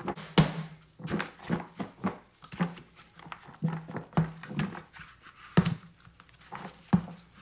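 A lidded plastic mixing bowl shaken by hand, with onion strings and flour tumbling and thudding inside, coating the onions in batter. Irregular knocks and shuffles, several a second, with the loudest thumps just after the start and again about five and a half and seven seconds in.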